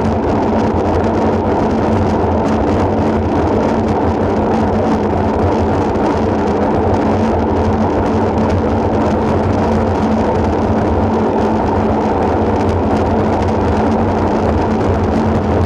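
Steady wind rush and rumble on the microphone of a camera mounted on a road bike while riding at speed, heavy and low-pitched, with tyre noise on asphalt beneath it.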